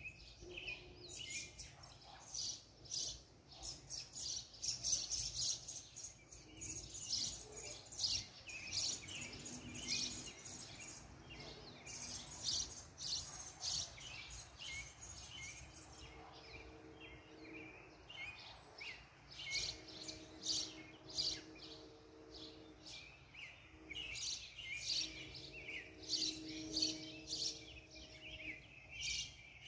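Several birds chirping and singing, many short rapid calls overlapping. In the second half a low steady hum comes and goes beneath them.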